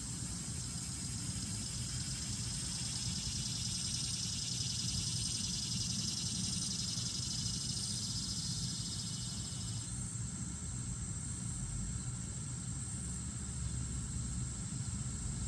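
Outdoor summer ambience: a high insect drone that cuts off abruptly about ten seconds in, over a steady low rumble of distant traffic.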